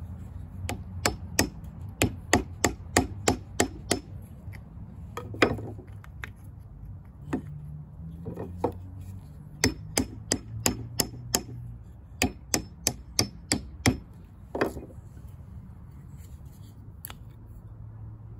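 Hammer striking a thin wooden drift set in the eye of a Craftsman hatchet head, driving the old handle out of the head. The sharp knocks come in two quick runs of about two a second, with a few single knocks between them and after.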